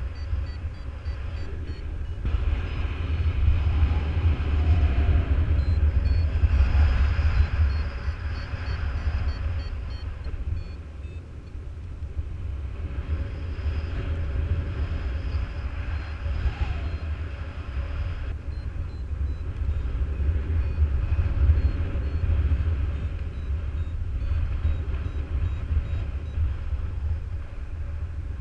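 Wind rushing over the microphone in flight, a heavy low rumble that swells and eases, with a variometer faintly beeping in short high pips on and off.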